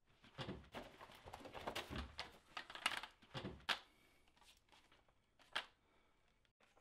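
Foley handling sounds: clothing rustling and scuffing, with crackly clicks and scrapes as someone scrambles up and grabs a metal pole, then a single sharp knock about five and a half seconds in.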